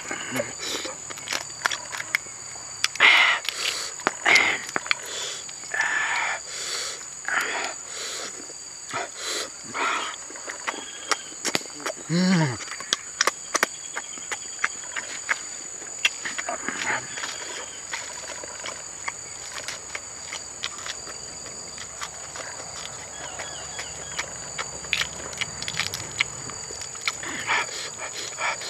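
A man eating roasted duck eggs: wet chewing and lip-smacking with short breathy exhales through an open mouth, and a brief low 'mm' about twelve seconds in, plus small clicks of eggshell being picked off. A steady high insect drone runs underneath.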